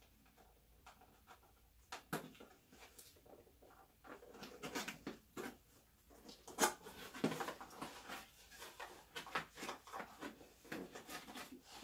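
Cardboard camera box being opened and handled: scattered clicks and scrapes of cardboard and packaging, with busier rustling from about four seconds in.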